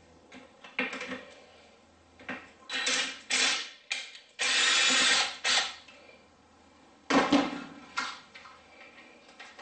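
Handheld power drill/driver run in several short bursts, the longest just under a second near the middle, while fasteners are taken out during ATV disassembly.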